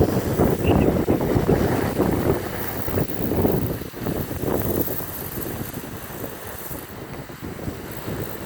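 Strong storm wind gusting and buffeting the microphone, loudest for the first three seconds and then easing. Under it is the whooshing, airplane-like sound of a windmill spinning in the gale.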